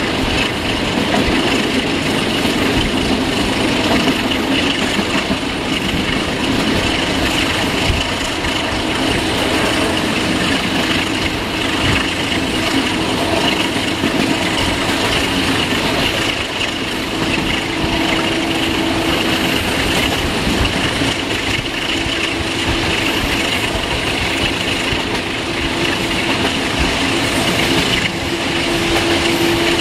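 Train running at speed, heard from the carriage behind an Electroputere LDE class 62 diesel-electric locomotive with a Sulzer 12LDA28 engine: a steady rumble of engine exhaust and rail noise, with a low steady hum that comes and goes over the second half.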